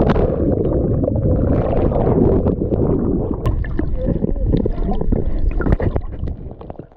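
A splash as a GoPro plunges into the sea, then muffled underwater gurgling and bubbling, with a few sharp clicks.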